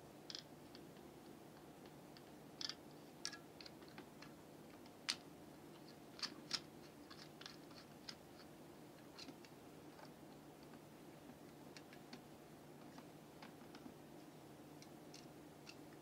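Faint, scattered clicks and small scrapes of a tester screwdriver against the brass terminal screws and plastic body of a water heater switch being wired, over a steady low hum. The clicks come thickest in the first half and thin out later.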